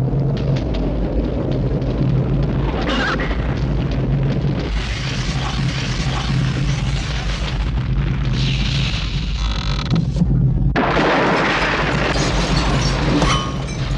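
Sound-effects track from a hand-drawn animated film, with no music. A continuous low rumble and a steady hum run under a wash of noise that changes several times, with a sudden loud burst about three-quarters of the way through.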